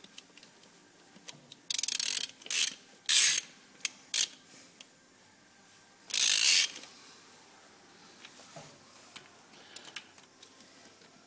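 Ratchet wrench clicking in short bursts, several quick strokes in the first half and one longer run a few seconds later, as bolts on a truck wheel hub are tightened.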